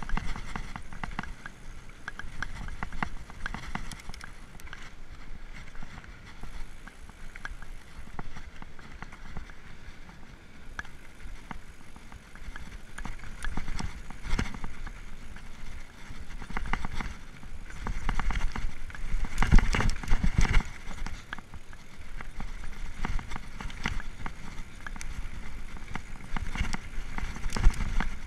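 Mountain bike descending a dirt trail: tyres rolling on dirt under a low rumble, with the chain and frame rattling and knocking over bumps. A louder, rougher stretch of clattering comes about twenty seconds in.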